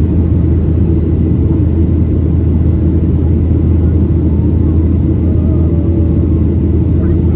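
Steady low drone of a Boeing 737-800 in flight heard inside the cabin: the CFM56 engines and the rush of air past the fuselage.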